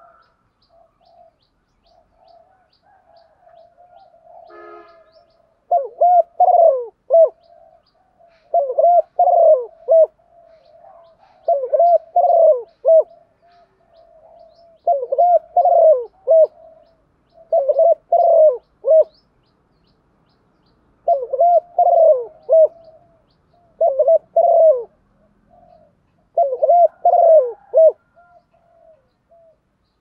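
Female spotted dove cooing: soft, low murmured coos at first, then from about six seconds in, eight loud phrases of two or three arched coo notes, repeated about every three seconds. This is the hen's call that keepers play to rouse male doves to coo.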